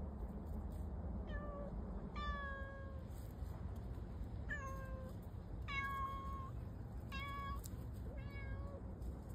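Domestic cat meowing repeatedly: about six drawn-out meows, each dipping quickly in pitch at the start and then holding steady, over a steady low background rumble.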